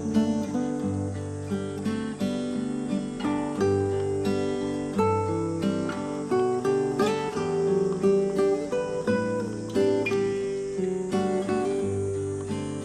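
Background music: acoustic guitar playing, with plucked and strummed notes.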